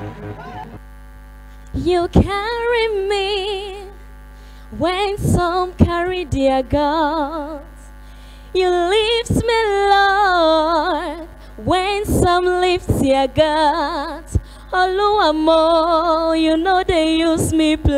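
A woman singing a gospel song in phrases with wide vibrato, broken by short pauses, over a steady electrical hum.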